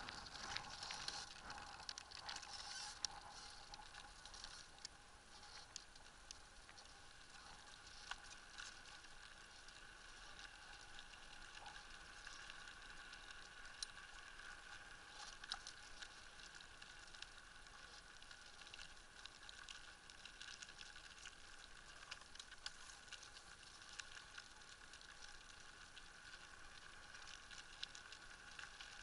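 Faint rolling of a sail-powered land rig's wheels on tarmac, a low steady hum with scattered light ticks and rattles, swelling slightly a couple of times.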